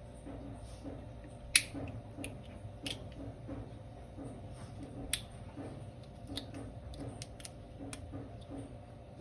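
Sharp little clicks and scrapes of a hand tool working over a small plastic figure, stripping off paint softened by an alcohol soak; the loudest click comes about one and a half seconds in, with a few more scattered through.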